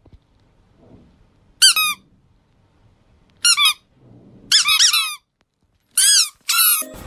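Squeaky toy squeaking in five short bursts of quick, high chirps, spaced a second or two apart.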